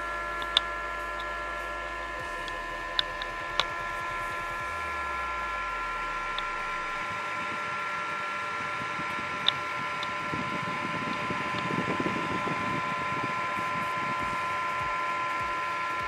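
Small DC fan and liquid-cooling pump of a homemade Peltier air cooler running with a steady, high whine. A few faint clicks, and a low rustle about two-thirds of the way through.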